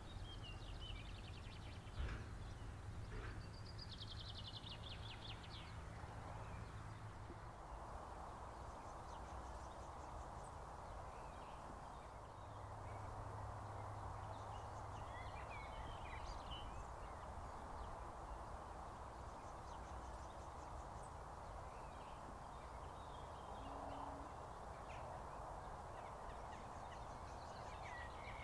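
Birds chirping and trilling, over a faint, steady low drone from a distant GM 071 class diesel locomotive. The drone grows a little louder about halfway through.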